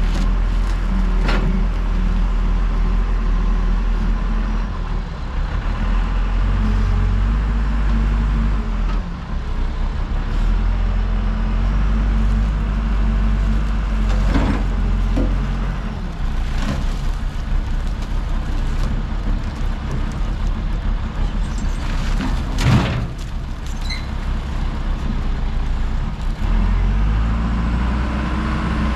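JLG 10/55 telescopic handler's diesel engine running under hydraulic load, its speed rising and falling as the boom works. A few sharp knocks come through it, the loudest about two-thirds of the way through.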